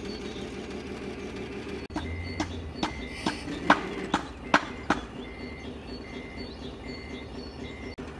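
Scale-model MAN truck's electronic sound module: a diesel engine idling steadily. About two seconds in, a reversing beeper starts and settles into regular beeps about once every 0.7 s. Between about two and five seconds there are several sharp clicks and knocks.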